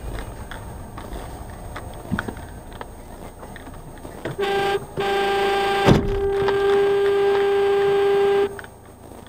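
Car horn: a short toot, then a long steady blast of about three and a half seconds. A sharp thump sounds about a second into the long blast, over the low running noise of the car.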